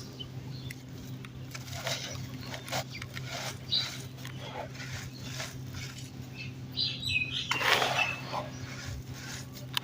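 Dry, crunchy dirt crumbling, with scattered small crackles and soft crunches and a longer, louder crunching burst near the end.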